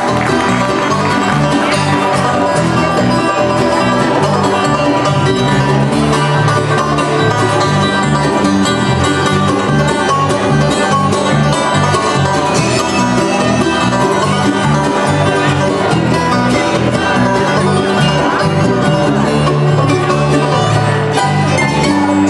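Bluegrass music with banjo, guitar and fiddle, playing steadily at an even loudness.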